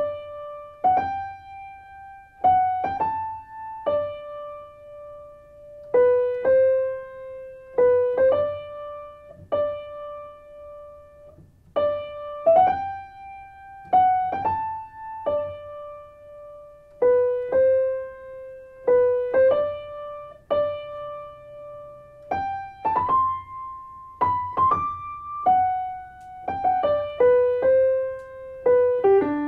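Background music: a slow piano melody played one note at a time, in short repeating phrases, with each note left to ring and fade.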